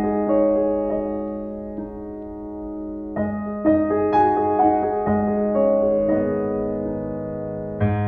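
Background piano music: slow, sustained notes that fade to a softer stretch about a second in, then a new phrase of notes beginning about three seconds in.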